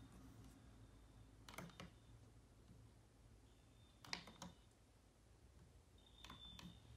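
Smoke alarm sounding very faintly from upstairs, heard as three brief high beeps about two seconds apart, mixed with a few light clicks over quiet room hum.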